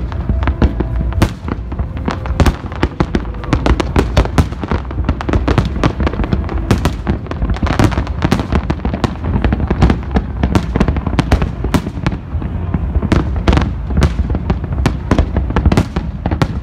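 Aerial firework shells bursting in a dense, continuous run of bangs and crackles, several a second, over a constant low rumble.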